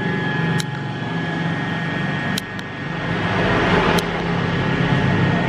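Electric hair clipper running with a steady buzz, with a few sharp clicks.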